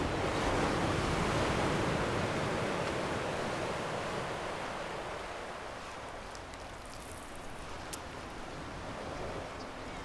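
Sea surf washing steadily with some wind, loudest in the first couple of seconds and slowly easing off.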